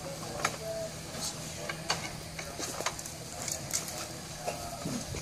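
Scattered light clicks and taps from the antenna mast and its tripod stand being handled while the mast is raised, over a steady low hum.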